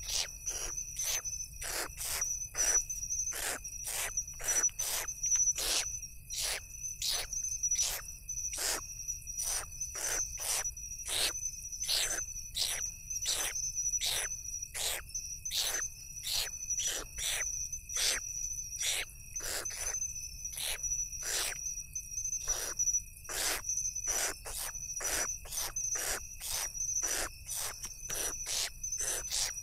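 Owl chicks begging for food with short rasping hisses, about two a second, while being fed at the nest. Under them runs a steady high trill of crickets.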